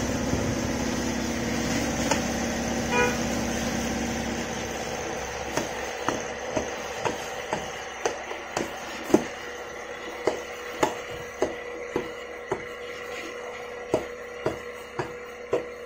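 Repeated sharp metal knocks, about two a second, each with a short ring, as a metal tool strikes a tyre lever wedged between a tubeless scooter tyre's bead and its steel rim to work the tyre off. A steady hum lies underneath and fades during the first few seconds.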